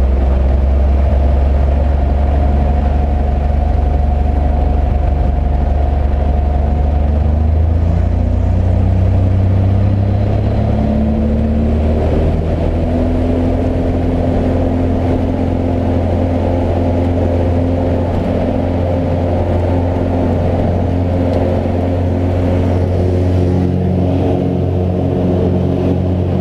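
Single piston engine and propeller of a small high-wing plane, heard from inside the cabin, running steadily while taxiing. Its pitch steps up about ten seconds in as power comes up for the takeoff roll, then holds steady through the climb-out.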